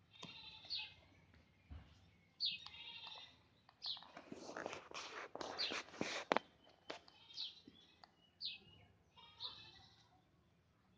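Short high-pitched animal calls repeating about once a second. From about four seconds in there is a couple of seconds of rustling with sharp knocks, the loudest near the middle, as the phone is handled.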